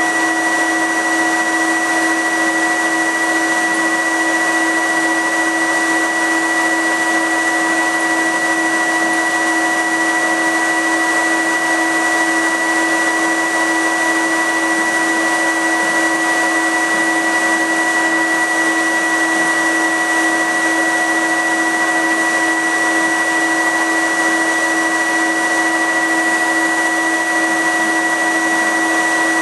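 Laser cutter's fume extraction filter unit running, really loud: a steady, even rushing blower noise with a high whine and a lower hum held constant throughout.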